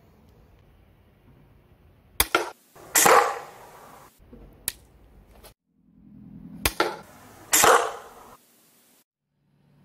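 Chain-driven slingshot crossbow shot twice. Each shot is a sharp snap of release, followed under a second later by a louder thwack of the bolt striking the target.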